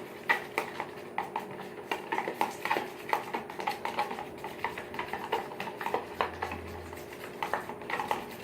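A spoon stirring a thick mix of ketchup and hot sauce in a bowl, clinking and tapping against the bowl in quick, irregular clicks.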